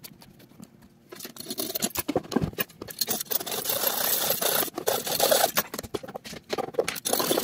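Thin-bladed hand saw cutting small plastic nubs off, in quick back-and-forth scraping strokes that start about a second in.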